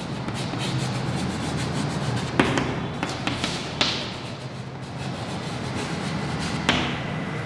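Chalk tapping and scraping on a blackboard as words are written, with three sharper taps. A steady low hum runs underneath.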